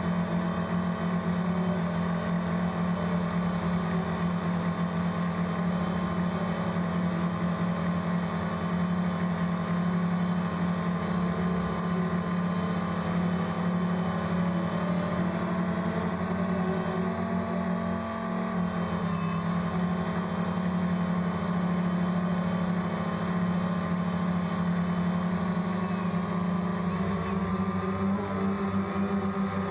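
Steady motor and propeller buzz of a DJI Phantom quadcopter, picked up by the camera riding on it. The pitch shifts slightly as the drone manoeuvres, with a small dip about eighteen seconds in.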